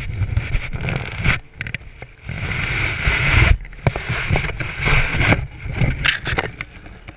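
Wind buffeting the camera's microphone in gusts, strongest about two to three and a half seconds in, with knocks and rustles as the camera is picked up and turned around.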